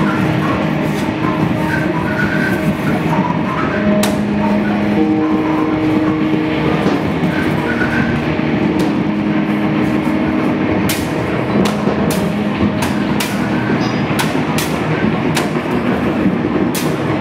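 Live improvised experimental music: a dense, noisy wash with several held low tones that come and go, and scattered sharp clicks that grow more frequent in the second half.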